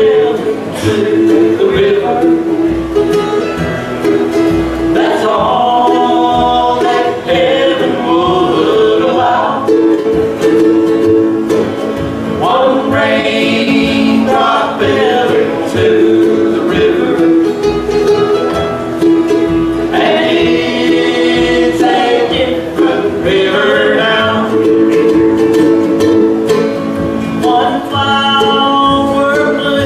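Bluegrass band playing a song, acoustic guitar and upright bass with other plucked strings, with singing.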